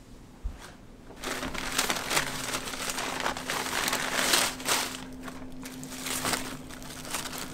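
Paper takeout bag rustling and crackling as it is opened and a sandwich is pulled out, then the sandwich's foil-lined wrapper crinkling in the hands; the crinkling starts about a second in and is loudest around the middle.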